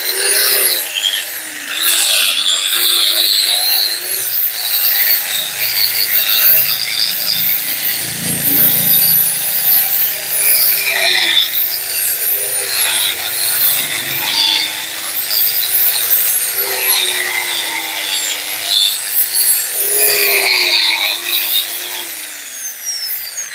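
Handheld grinder running against a car's steel suspension coil spring, scouring off the old paint and rust. The motor pitch dips and recovers as it loads against the coils, under a harsh scraping. Near the end it is switched off and winds down.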